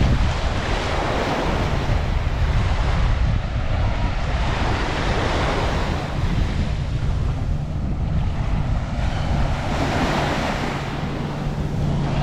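Surf washing onto a sandy beach, the wash swelling and easing every few seconds, with wind rumbling on the microphone.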